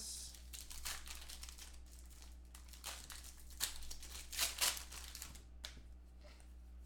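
Thin clear plastic card sleeve crinkling and rustling as a trading card is handled and slipped into it, in a run of short irregular rustles and clicks, busiest a few seconds in. A low steady hum runs underneath.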